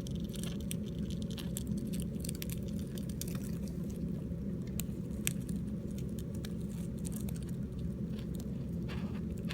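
Japanese rhinoceros beetles mating: the trembling male makes irregular scratchy ticks and crackles against the female's shell, over a steady low hum.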